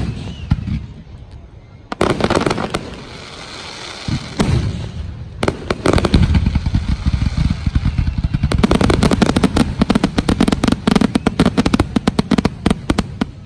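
Aerial fireworks finale: single shell bursts booming every second or two at first, then from about eight seconds in a rapid barrage of many booms and crackles in quick succession that stops suddenly near the end.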